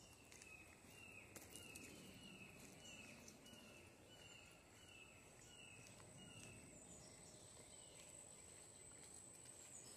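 Faint woodland background: a steady, very high insect drone, and a bird repeating a short falling note about twice a second that stops after about six and a half seconds.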